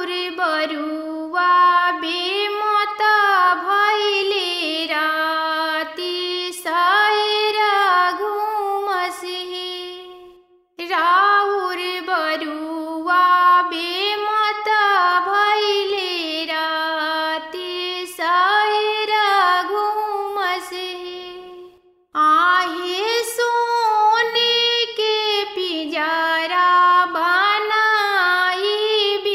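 A woman singing a traditional Bhojpuri janeu (thread-ceremony) folk song solo, with no instruments, in long melodic phrases that break briefly about ten and twenty-two seconds in.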